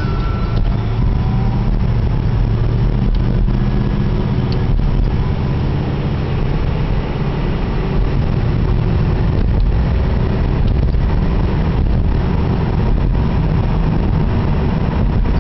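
Steady, loud low rumble of road vehicle traffic.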